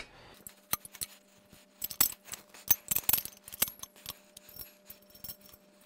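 Sharp, irregular metallic clicks and clinks from the leg assembly of a Grace Co. Continuum longarm quilting frame as it is handled and its telescoping height section adjusted. A faint steady hum sits underneath.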